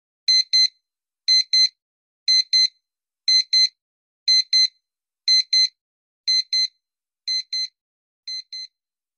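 Countdown timer sound effect: a high electronic double beep once a second, nine times, growing fainter over the last few.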